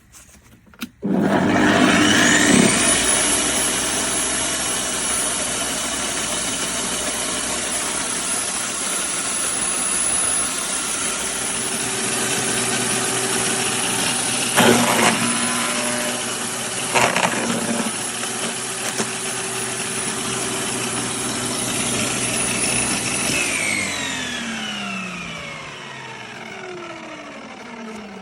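AIVOLT 2500W electric garden shredder (wood chipper) switched on, its motor spinning up with a rising whine, then running steadily at speed, with two short sharp cracks about halfway through. Near the end it is switched off and the whine falls away as the blades wind down.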